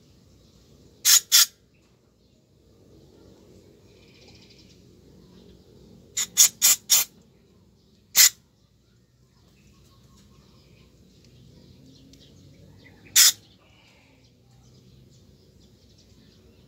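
Aerosol cleaner sprayed through an extension straw onto a dirty motorcycle throttle body in short hissing bursts: two about a second in, a quick run of four around six seconds, then single bursts near eight and thirteen seconds.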